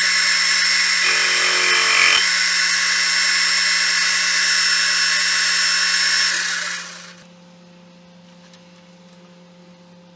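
Small metal lathe running with a steel rod spinning in its three-jaw chuck: a steady high whine, with a brief change in the sound about a second in. The motor is switched off about six seconds in, and the spindle runs down to a stop within a second.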